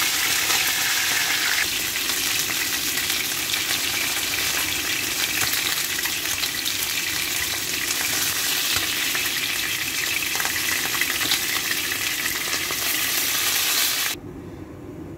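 Tuna pieces sizzling in hot frying oil in a frying pan, fried until lightly browned and being lifted out. The sizzling cuts off suddenly near the end.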